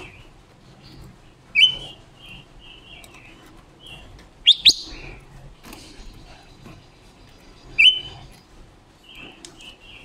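Female silver-eared mesia calling: a run of short chirps repeated several times a second, broken by louder, sharper calls about a second and a half in, a quick double note near the middle, and another near the end.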